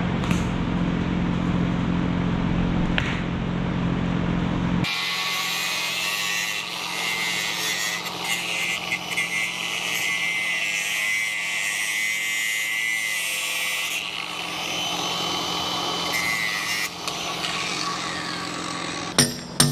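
A hand-held power saw cutting through thick green PVC suction hose, grinding steadily for many seconds after a steady low hum that stops abruptly about five seconds in. Right at the end, quick repeated hammer blows begin.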